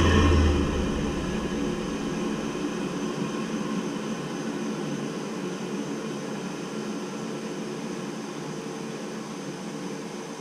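Navien tankless water heater running with its cover off, its combustion blower, burner and pump making a steady whir with a few faint tones, easing slowly in level. A deep hum cuts off about half a second in.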